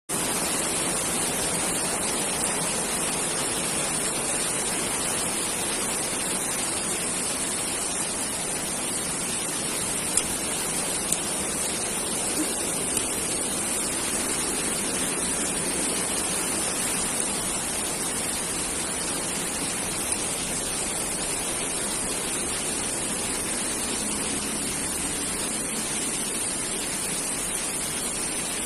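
Waterfall's water rushing in a steady, even roar, with a few brief clicks around the middle.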